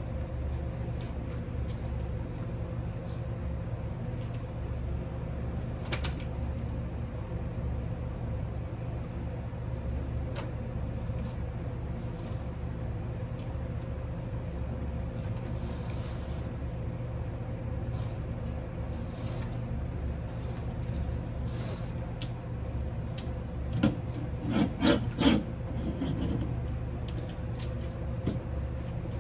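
Light scraping and clicking of a monitor lizard's claws on a wooden log, over a steady low hum. About two-thirds of the way through comes a brief run of louder squeaky sounds.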